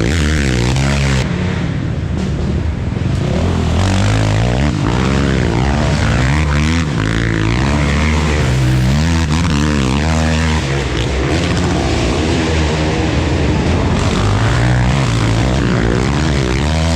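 Racing ATV (quad) engine running hard, its pitch rising and falling over and over as the throttle is opened and closed.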